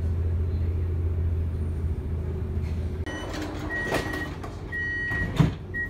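Inside a diesel regional train: a steady low drone that drops away about three seconds in, then three high steady beeps of the door warning with knocks and clunks from the sliding doors, the loudest a sharp thud near the end.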